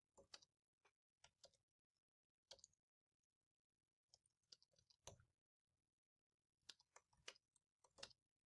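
Faint, scattered computer keyboard keystrokes: a line of text being typed, in small clusters of clicks with gaps between them.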